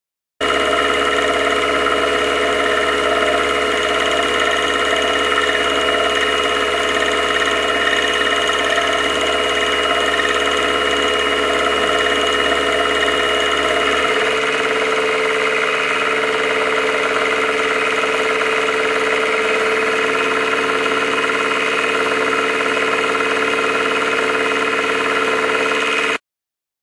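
Milling machine running as a roughing end mill cuts a flat into a large bolt: a loud, steady machine drone with several held tones that shift about halfway through, then stops suddenly near the end.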